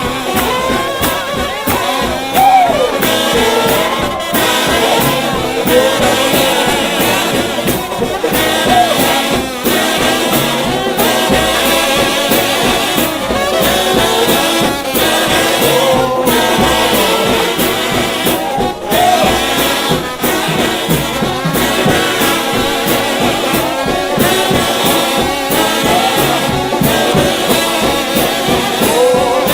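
Trombone shout band playing gospel music: several trombones together, with sliding pitch glides, over a steady percussion beat.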